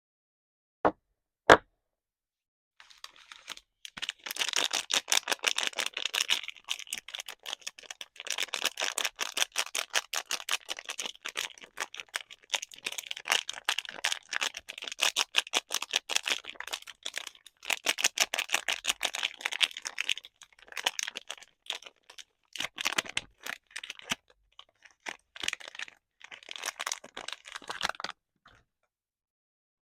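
Soap packaging being unwrapped by hand: two sharp taps, then a long stretch of rapid crinkling and crackling with a few short pauses.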